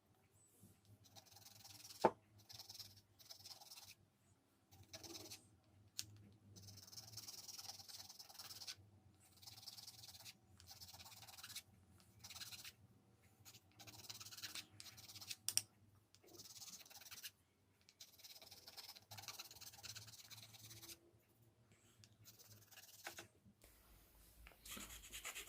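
Faint, irregular scraping and rubbing with a few sharp clicks: small plastic parts of a Moulinex blender being handled and worked by hand.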